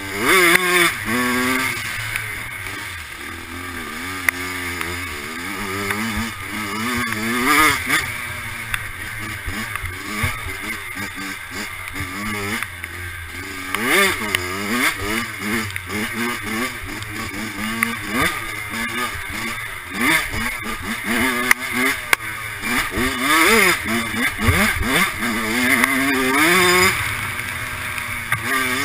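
Dirt bike engine with a freshly rebuilt top end, revving hard and repeatedly. Its pitch climbs and drops over and over as the throttle opens and closes and the gears change, with louder surges several times.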